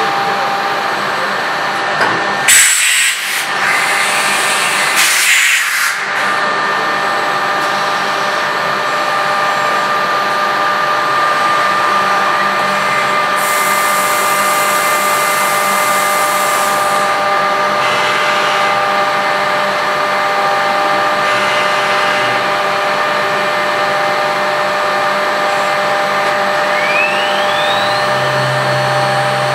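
Weeke BMG111 (Venture 108M) 5-axis CNC machining centre running while machining a wooden workpiece: a steady mechanical noise with several steady whining tones, two short louder bursts of cutting noise about three and five seconds in, and a tone rising in pitch near the end.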